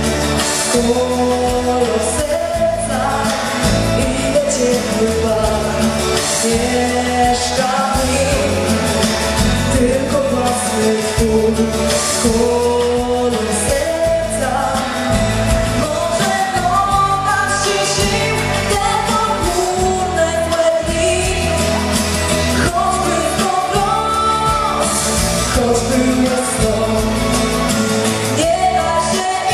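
A woman singing a pop song into a handheld microphone over an amplified pop accompaniment.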